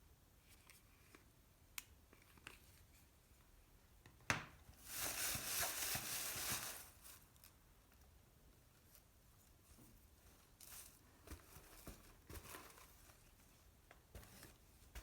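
Product packaging being opened by hand: a sharp click about four seconds in, then about two seconds of tearing and crinkling of wrapping, followed by a few light rustles.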